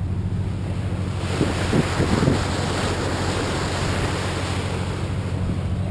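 Riverboat engine running with a steady low hum, under loud rushing water and wind noise on the microphone that swell for a few seconds in the middle.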